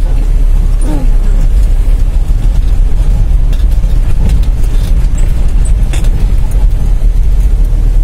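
Motorhome driving slowly on a dirt road, heard from inside the cab: a steady low rumble of engine and tyres, with a few faint knocks and rattles from the bumpy road.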